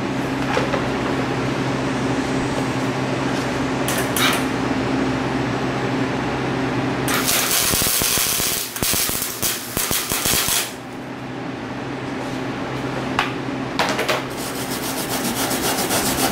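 Steady low hum, then about seven seconds in three to four seconds of crackling, sizzling flux-core wire-welder arc laying a tack weld on a split steel mower deck. Near the end a stiff wire brush starts scrubbing over the fresh weld.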